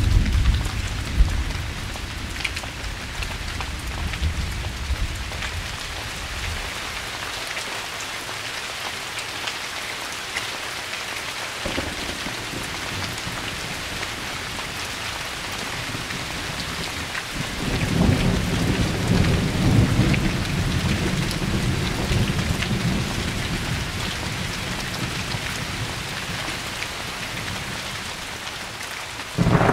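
Steady rain falling, with rolling thunder rumbling at the start, dying away, then rumbling again for several seconds about halfway through, and a sudden loud thunder crack just at the end.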